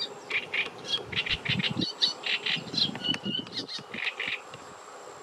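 Mute swan cygnets peeping: a rapid string of short, high calls that stops about four and a half seconds in.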